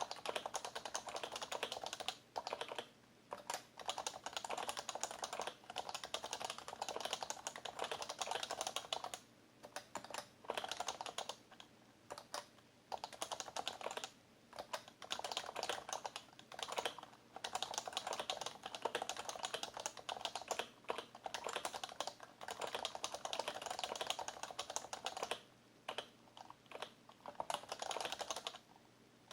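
Steady, fast typing on an HHKB Professional BT keyboard, a rapid run of keystrokes from its Topre capacitive keys. The typing breaks off for brief pauses every few seconds.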